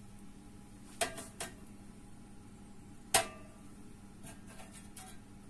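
Metal serving spoon clinking against dishes while sauce is spooned out: a few light clinks about a second in, one sharp, louder clink with a short ring about three seconds in, and a few faint taps near the end.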